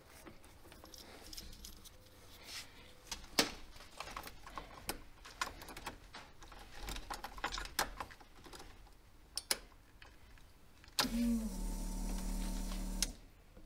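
Keys and wires handled with small clicks and rattles, then about eleven seconds in a steady electrical hum with a low pitch comes on as the ignition is switched on, and cuts off suddenly about two seconds later.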